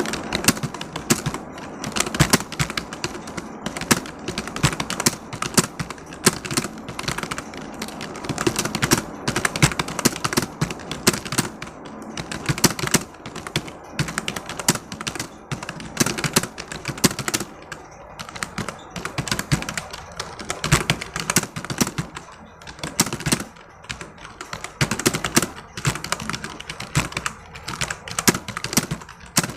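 Fast, continuous typing on a computer keyboard, rapid clicks of the keys with a few brief pauses, at a speed of about 60 words per minute.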